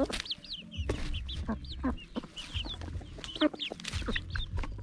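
Young chickens peeping and chirping in many short, high calls, with sharp taps and leaf rustle from beaks pecking at the ground close by.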